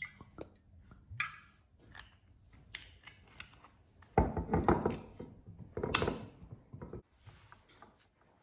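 Kitchen handling sounds as olive oil is poured over raw swordfish fillets on paper towel and the fillets are handled: scattered small clicks and light knocks, then two louder bursts of handling noise about four and six seconds in.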